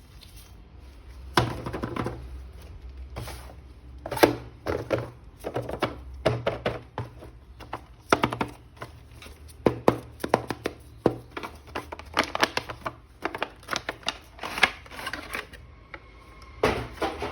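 Irregular sharp clicks, taps and knocks of plastic toy figures and parts being handled, coming several a second from about four seconds in.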